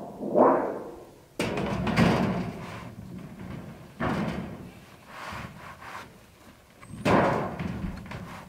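A thin painted steel sheet being handled and laid onto a wooden foundation skirting: the sheet flexes, scrapes and clatters. A few sudden thuds come as it is set down and shifted, about a second and a half, four and seven seconds in.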